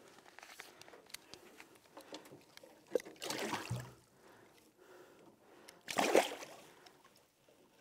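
A hooked butterfly peacock bass splashing at the water's surface beside the boat, with one longer splash about 3 seconds in and a sharper, shorter one about 6 seconds in.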